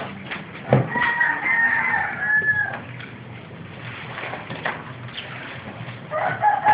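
A rooster crowing twice: one long drawn-out crow about a second in, and another starting near the end. A short knock comes just before the first crow.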